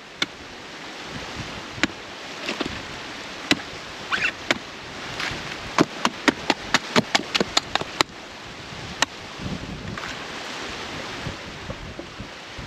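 Small hand axe chopping into the husk of a green coconut: sharp single chops spaced out at first, then a quick run of about ten strikes in the middle, and one last chop a little later.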